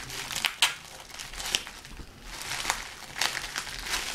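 Plastic packaging crinkling and rustling as it is handled and opened, in a series of short crackly rustles.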